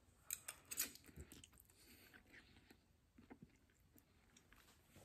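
Faint chewing of a mouthful of spicy instant noodles: soft, wet mouth clicks, most of them in the first second and a half, then only a few scattered ticks.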